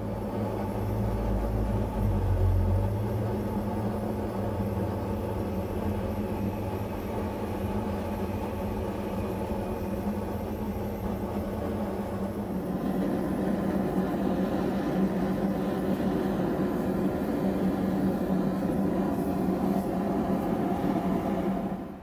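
A machine running with a steady hum, heavy with low rumble for the first few seconds and growing fuller about halfway through.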